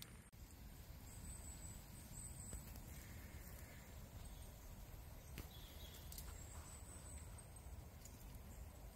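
Near silence: faint outdoor ambience with a steady low rumble, a thin high hiss that comes and goes, and a couple of faint ticks.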